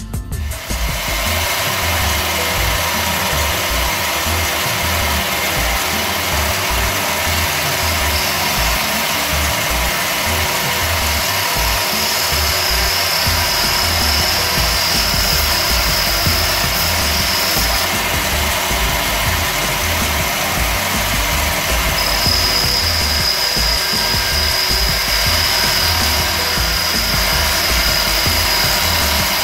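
Small benchtop metal lathe starting up about half a second in and running steadily, with a hand-held tool scraping against the spinning workpiece. A thin high whistle comes and goes twice.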